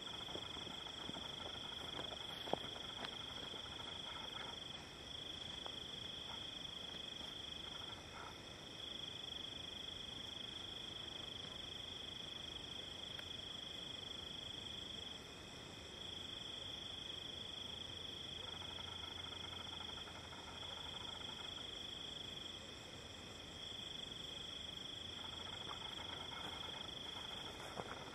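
Night chorus of crickets trilling: a steady high trill that drops out briefly every few seconds, with fainter, higher insect notes over it. A single sharp click sounds about two and a half seconds in.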